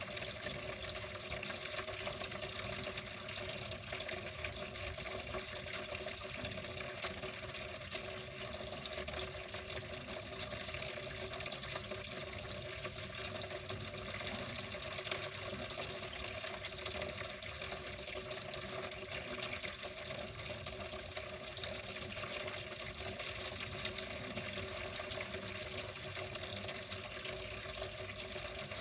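Water running and flowing steadily, an even, continuous rush with no breaks.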